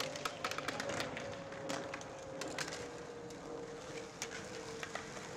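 Skateboards rolling on an asphalt court, with scattered sharp clicks and clacks. Under it runs a faint steady hum that slowly drops in pitch.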